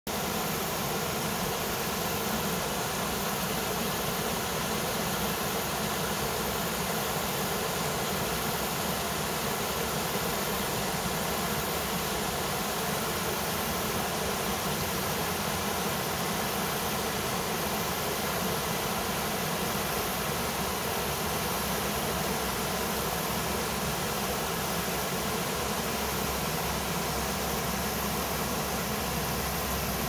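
Creek water rushing steadily over a low rocky cascade into a pool.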